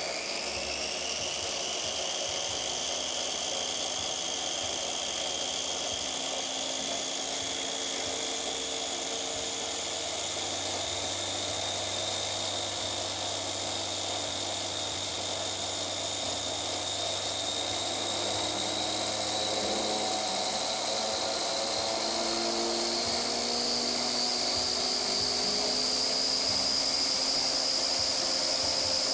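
Harbor Freight angle grinder with a flap disc, running free on a speed controller at low speed: a steady high whine that climbs slowly in pitch and gets a little louder as the speed is turned up. It runs smoothly, without much vibration.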